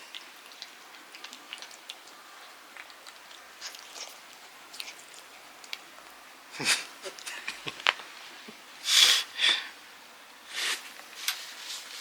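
A cat being handled while it is given a pill. Small clicks and light handling noises come first, then a few louder short sounds, two of them close together about three-quarters of the way in.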